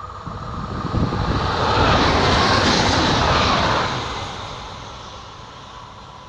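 SNCF TER AGC (Bombardier) regional train passing at speed. A rushing rumble of wheels and traction swells to its loudest about two to three seconds in, then fades as the train draws away.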